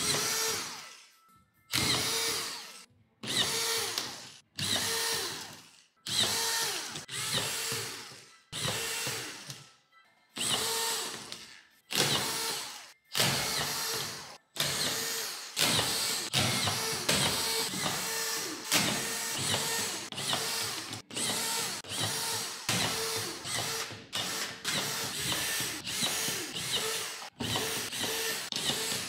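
Makita DFS452Z 18 V cordless drywall screwdriver driving screws into a plasterboard ceiling, with a short burst of the motor for each screw that starts sharply and dies away. The bursts come about every second and a half at first, with quiet between them, then come faster and run into each other from about halfway on.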